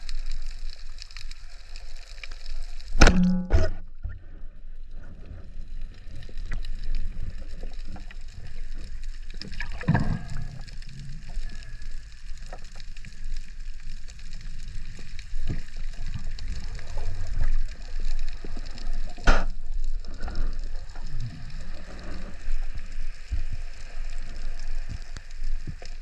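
Underwater sound picked up through a camera housing: a steady wash of water noise with faint scattered crackling. It is broken by a few sharp knocks, the loudest about three seconds in and others about ten and nineteen seconds in.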